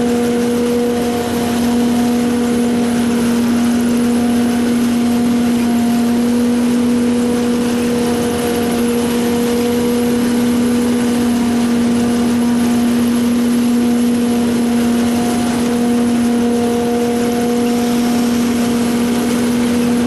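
Pik Rite 290 tomato harvester running steadily, a constant machine hum at one even pitch over a rushing mechanical noise.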